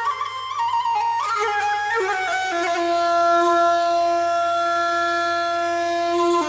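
Traditional folk music played on a wind instrument: a quick, ornamented melody that settles into one long held note from about two and a half seconds in until just before the end.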